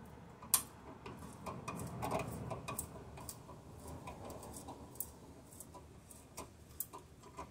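6 mm hand tap turned in a T-handle wrench, cutting a thread in a hole in a car's metal body panel: faint, irregular small metallic clicks and ticks, one sharper click about half a second in.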